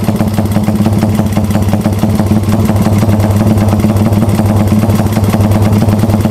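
Single-cylinder bored-up Honda CB motorcycle engine (66 mm piston, 28 mm carburettor) idling steadily through an aftermarket exhaust with a fast, choppy putter, while its carburettor is set for the stuttering 'brebet' idle.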